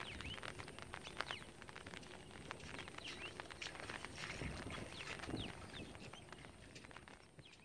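Open-field ambience with small birds chirping again and again, over scattered soft clicks and rustles and a faint steady high hiss; it fades out near the end.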